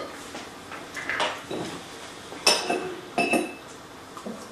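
Cutlery clinking and scraping against a plate as food is eaten fast, with two sharp clinks that ring briefly about halfway through.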